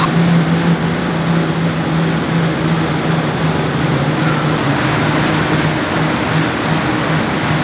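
Air bike's fan whirring under hard pedalling: a loud, steady rushing with a low hum.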